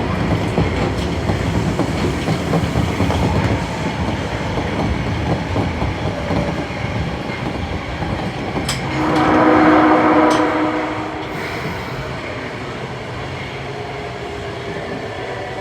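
Osaka Metro 22 series subway train running, with rail-joint clacking and rumble that eases off toward the end. About nine seconds in, it sounds its horn for about two seconds: the horn of this particular car, known for its unusual, off-normal tone.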